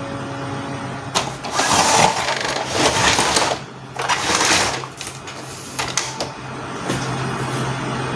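Plastic casing of an Epson L210 printer being handled and fitted back on: three scraping, rubbing sounds of about a second each, then a few sharp clicks as the parts seat, over a steady low hum.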